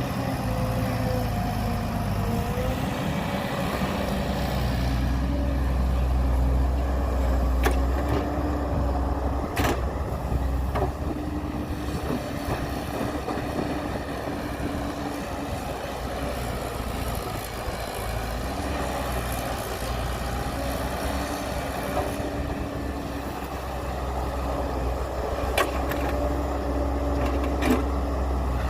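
Heavy diesel machinery running steadily with a deep engine rumble and a faint whine that wavers in pitch. A few sharp knocks sound scattered through, the loudest around a third of the way in and near the end.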